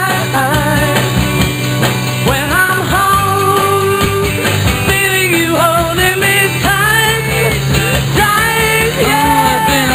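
Rock and roll song with a sung melody over bass, guitar and drums keeping a steady beat.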